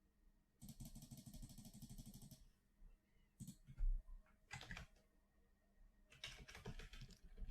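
Faint clicking of a computer keyboard and mouse: a quick even run of clicks for about two seconds, then a few single clicks and a dull low thump near the middle, and a flurry of typing near the end.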